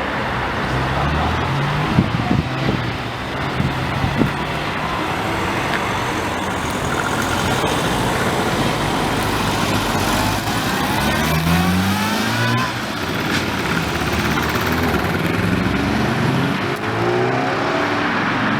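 Modified performance cars accelerating hard, their engine notes rising in pitch again and again as they pull away. There are a couple of sharp pops about two and four seconds in.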